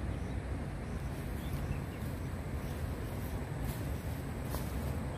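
Steady outdoor background noise, a low rumble with an even hiss, with two faint sharp rustles or ticks past the middle.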